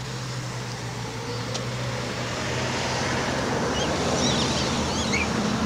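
A road vehicle approaching and passing close by, its engine and tyre noise growing steadily louder.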